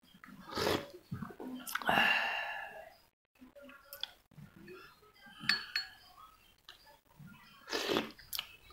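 A metal spoon clinking and scraping against a glass of hot coffee: several separate knocks spread out, with a longer scrape about two seconds in.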